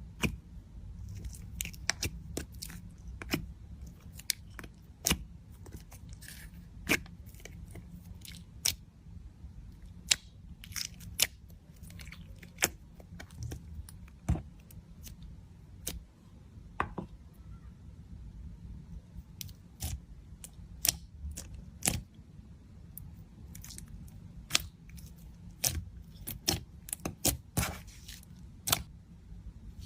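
Slime being squished and pressed by hand, giving irregular sharp clicks and pops, a few every second at the busiest moments, over a low steady hum.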